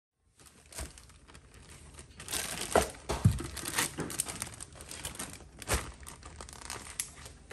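Plastic zipper-lock bags full of raw meat crinkling and rustling as they are handled, with several sharp knocks, the loudest clustered between about two and four seconds in.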